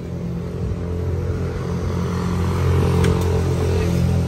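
Diesel engine of a tractor-unit truck idling steadily, its low even hum growing louder over the first three seconds, with a faint click about three seconds in.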